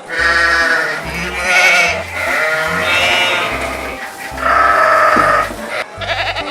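Farm livestock bleating about four times in a row, each call wavering and lasting up to about a second, over background music with a steady low beat.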